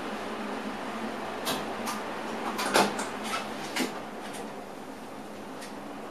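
Steady hiss of a train driver's cab with a series of sharp clicks and knocks, the loudest about three seconds in.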